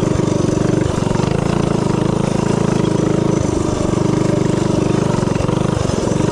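Governor-deleted, stage 1 Predator 212 single-cylinder four-stroke engine on a Coleman CC100X mini bike, running hard while riding. The revs dip briefly about a second in and again about three and a half seconds in.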